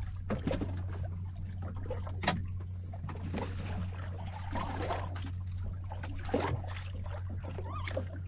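Water lapping and splashing against a small boat's hull in irregular small slaps, over a steady low hum.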